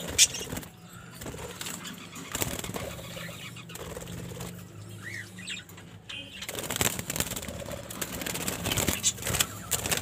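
Young budgerigars fluttering their wings inside a wire cage as they are caught by hand, with the cage wire rattling in short clicks and one brief chirp about halfway through. The clattering grows sharper and denser near the end.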